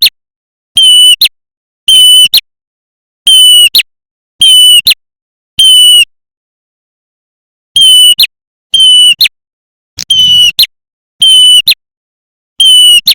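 Looped lure-call recording of a prenjak merah (red-headed prenjak), played loud and clipped: about ten short calls of roughly half a second each, about one a second, with a short pause midway. Each call is a wavering high note ending in a quick flick.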